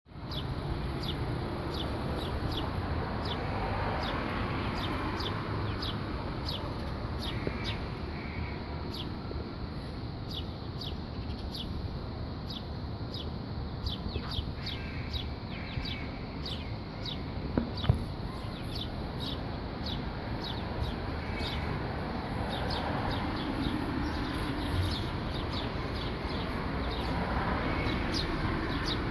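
Swifts (genus Apus) calling in flight: many short, high-pitched calls repeated throughout, over a steady low background rumble.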